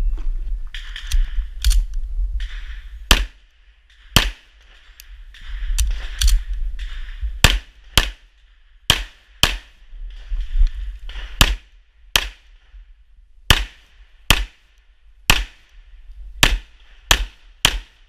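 9mm Imbel MD1 pistol fired about twenty times during a practical-shooting stage run, the shots mostly in quick pairs with pauses of a second or so between groups as the shooter moves between targets. A low rumble and a hiss fill the gaps between shots.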